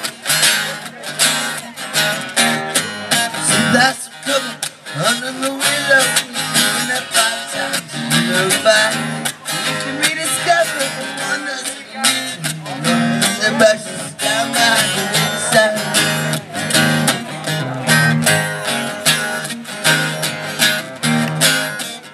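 Twelve-string acoustic guitar strummed in a steady rhythm through a PA, playing chords as an instrumental passage of a song.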